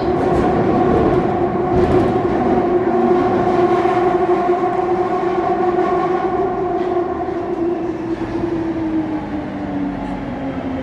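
Jubilee line 1996 stock train running, its traction motors whining over the rumble of the wheels. The whine holds steady and then slides gradually lower in pitch over the last few seconds as the train slows.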